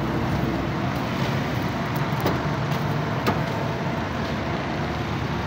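Steady road-traffic noise, with a few light clicks.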